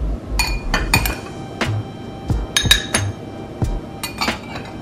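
Metal spoon clinking against a glass bowl and a glass cup while blueberries are scooped and dropped in: a quick, irregular run of about a dozen sharp clinks, several ringing briefly.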